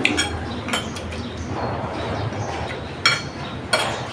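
Dishes and utensils clinking: four sharp clinks with a brief ring, the last two near the end the loudest.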